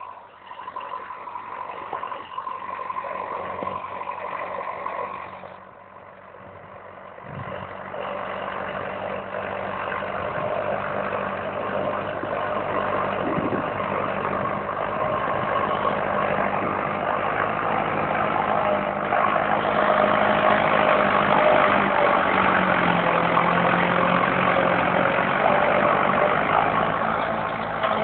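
Tractor diesel engine running steadily under load as it pulls a 13-tine duck-foot cultivator through the soil. It fades briefly about six seconds in, then grows steadily louder as the tractor draws near.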